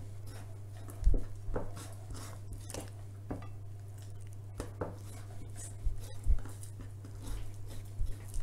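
Kitchen knife cutting through pork spare ribs, knocking against a wooden cutting board with about a dozen short, irregularly spaced knocks. A steady low hum runs underneath.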